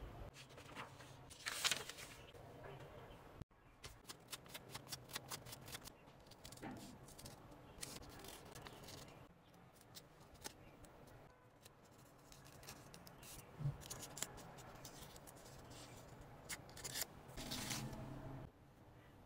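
Small scissors snipping through a folded stack of printed paper: a quick run of short snips, then slower, scattered cuts.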